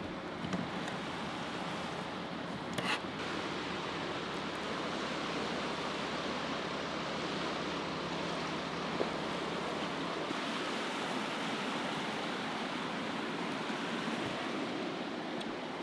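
Steady rushing of flowing river water, with one brief knock about three seconds in.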